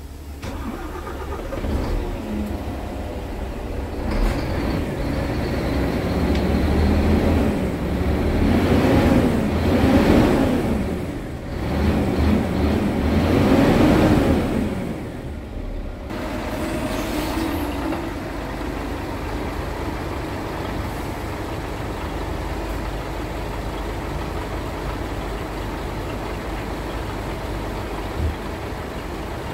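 Scania P-series truck diesel engine revved in neutral, twice climbing from idle to about 2000 rpm and holding there a few seconds. It then drops back to a steady idle for the second half.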